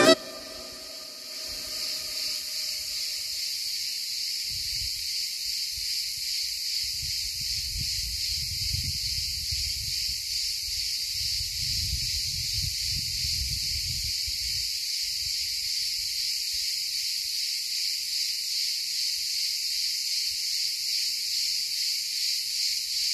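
Steady, high-pitched chorus of insects buzzing without a break, with a low rumble coming and going underneath.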